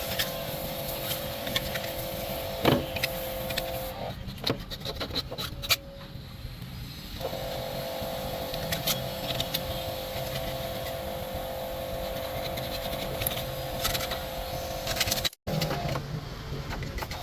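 A small workshop machine runs with a steady hum, amid scattered clicks and knocks of metal parts being handled. The hum stops for about three seconds, about four seconds in, then starts again.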